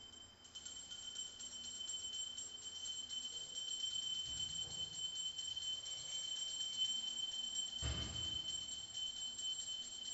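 Hand bell rung rapidly and continuously for the aarti, a steady high ringing. A dull thump about eight seconds in.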